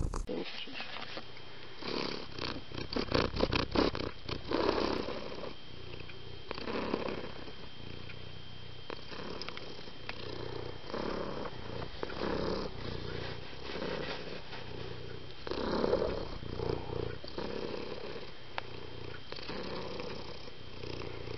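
A domestic cat purring, the purr swelling and fading with each breath. A quick run of clicks comes about three seconds in.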